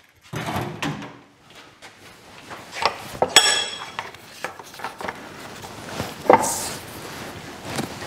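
Clicks, knocks and light clatter from a small metal slide-room motor being handled and shifted in a steel bench vise. About three and a half seconds in there is one bright metallic clink that rings briefly.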